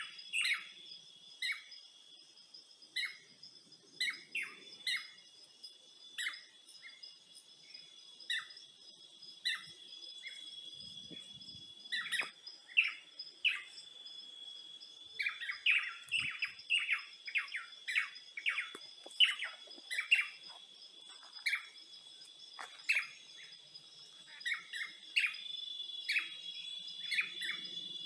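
Birds chirping in short repeated notes, with a busier run of chirps midway, over a steady high-pitched insect trill.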